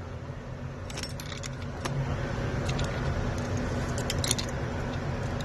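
Scattered light metallic clinks and jingles of small metal parts being handled, over a steady low hum.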